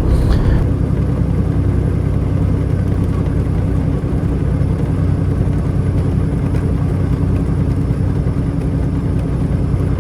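Semi truck's diesel engine and road noise droning steadily inside the cab while the truck is driving.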